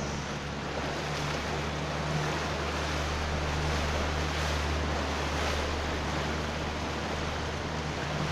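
Wind and water rushing past a boat at sea, with a steady low engine hum underneath.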